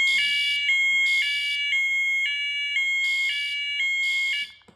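Two fire alarm sirens wired to a single pull station sounding together after the station is pulled. The electronic tone steps between two pitches about twice a second, is very loud, and cuts off shortly before the end.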